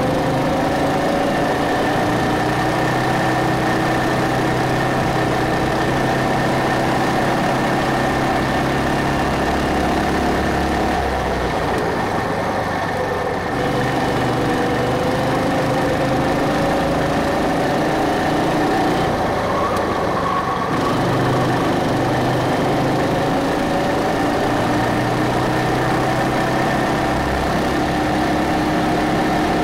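Go-kart engine running under throttle as the kart laps the track. Its pitch climbs gradually as it picks up speed and drops off briefly twice, about a third of the way in and again about two-thirds through, when it eases off for corners.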